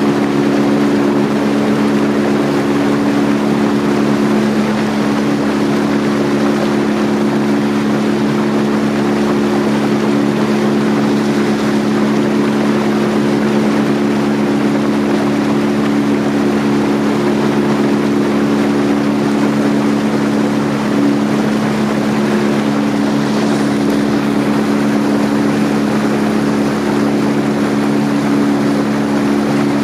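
Tour boat's motor running steadily while under way, a constant hum over a steady rushing noise of water and wind.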